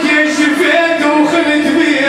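Live band music with singing.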